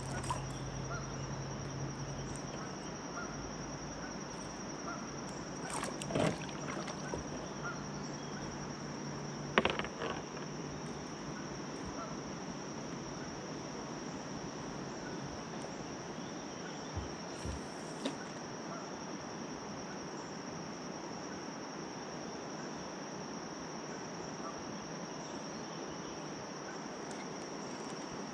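Steady high-pitched drone of insects in the riverside trees over quiet ambient noise, broken by a few brief knocks about six and ten seconds in and again near eighteen seconds.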